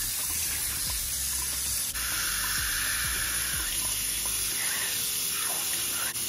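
Sink tap running steadily as herb grinder pieces are rinsed under the stream, washing off the dirty isopropyl alcohol and loosened resin.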